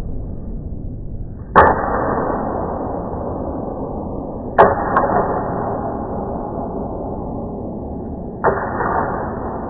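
Three sharp clashes of steel training longswords (feders), about three seconds apart, each followed by a long echoing wash that fades slowly.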